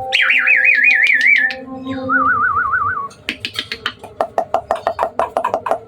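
Hybrid jalak suren (Asian pied starling) singing: a loud wavering whistle that slides slowly downward, then a lower wavering whistle about two seconds in, followed by a fast run of sharp clicking chatter notes from about three seconds in.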